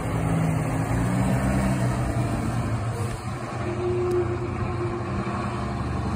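Steady low hum of an idling engine, even throughout.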